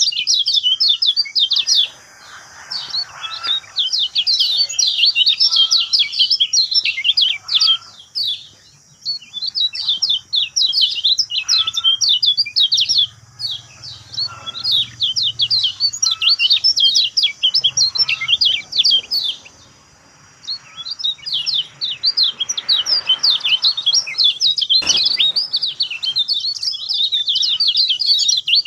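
Kecial kuning (a yellow white-eye) singing a fast, continuous twittering song of high chirps, with short breaks about 2, 8 and 20 seconds in. A single sharp click comes about 25 seconds in.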